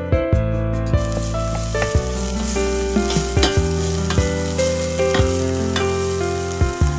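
Chili paste sizzling as it fries in fat in a stainless steel pot, being stir-fried until fragrant. A spatula scrapes and knocks against the pot again and again while it is stirred. The sizzle starts about a second in.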